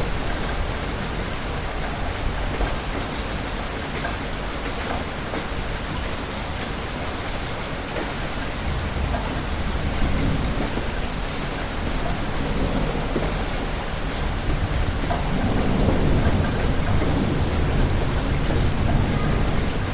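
Steady rain with rolling thunder, the rumbling swelling about halfway through and again near the end.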